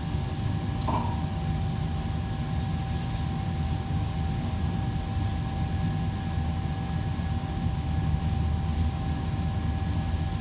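Steady low hum of kitchen ventilation fans, with a thin steady whine over it and one brief higher-pitched sound about a second in.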